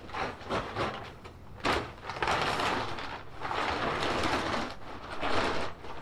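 Black plastic tarp rustling and crinkling as it is dragged and pulled over a stack of hay bales. There are softer rustles at first, then a few long swishes from about two seconds in.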